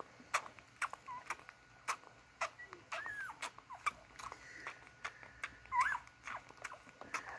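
Newborn beagle puppies nursing: a few short, high squeaks and whimpers over frequent sharp, wet suckling clicks.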